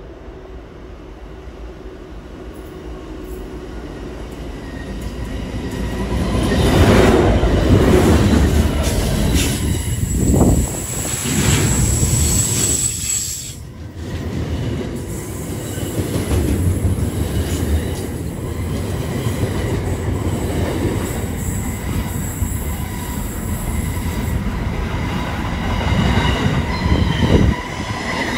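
Freight train approaching and passing close by. The locomotive grows louder over the first seven seconds and goes past, then a long string of box and container wagons rolls by with steady wheel noise and high-pitched squealing from wheels on the curve.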